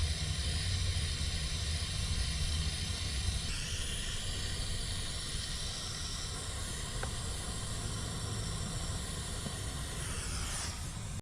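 Soldering gun humming low as it heats solder on a wire splice, fading over the first few seconds, under a steady hiss.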